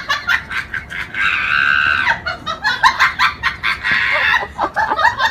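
Chickens clucking in quick short calls, with a longer drawn-out squawk about a second in and another near four seconds.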